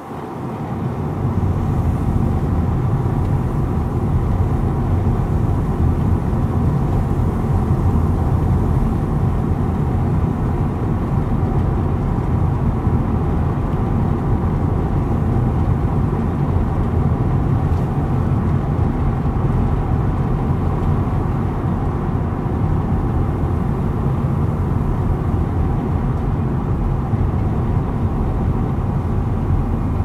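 Steady low rumble of a car driving along: engine and tyre noise on the road.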